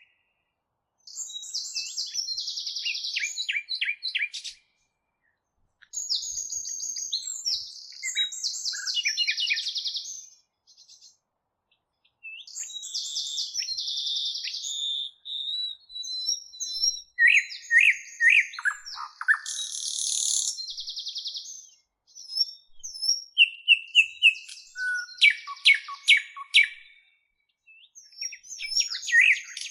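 A songbird singing a varied run of rapid chirps, trills and quick whistled glides in bursts of a few seconds, each burst breaking off abruptly into silence.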